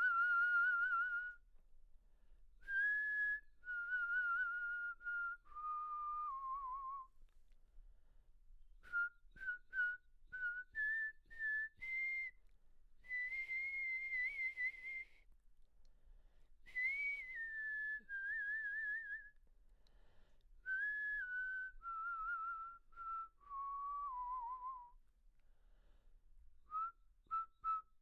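A person whistling a slow, wavering tune alone, in held notes and a few short ones, phrase by phrase with brief pauses between.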